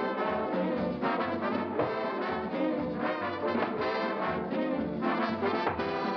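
Orchestral cartoon score with prominent brass, trombones and trumpets playing throughout. It breaks off abruptly near the end into a different passage.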